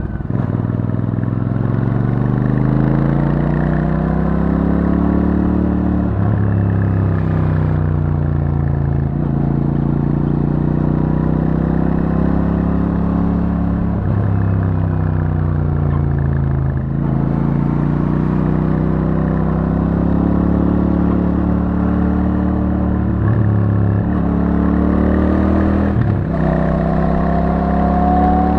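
Royal Enfield Super Meteor 650's 648 cc parallel-twin engine through its stock exhaust, rising and falling in pitch again and again as the bike accelerates and eases off through bends, with a few short breaks in the note.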